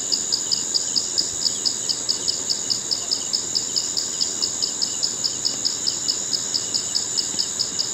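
Insects calling: a steady high-pitched trill with an even pulsing chirp about five times a second.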